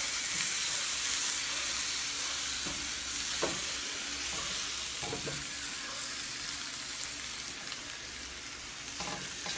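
Potato halves sizzling as they fry in a stainless steel frying pan, stirred with a silicone spatula, with a few light knocks of the spatula against the pan.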